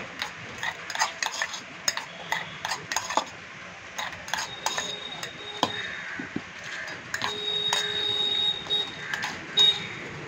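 A steel spoon clinks and scrapes against a thin aluminium bowl as sweet corn kernels are stirred. The taps are quick and irregular, and now and then the bowl rings briefly.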